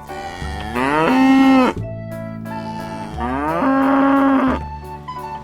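A cow mooing twice, each moo about a second and a half long, rising in pitch and then holding steady.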